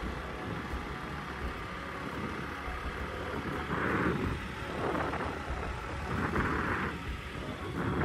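Motor scooter riding along a road: the small engine running under steady road and wind noise, swelling a little in places.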